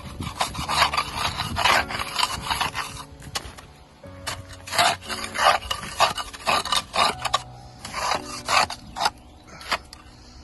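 Hardened, icy snow being scraped off a car by hand in repeated rough, rasping strokes, about one or two a second.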